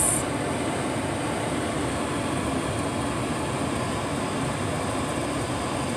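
Steady cabin noise of a truck driving slowly on a snow-covered road: an even rumble of engine and tyres with no separate events.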